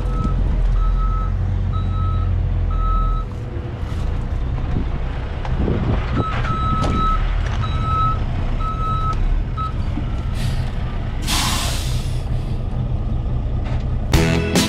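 Dump truck backing up: its reversing alarm beeps about once a second over the diesel engine's steady rumble, pauses for a few seconds, then resumes. About eleven seconds in comes one sharp hiss of the air brakes.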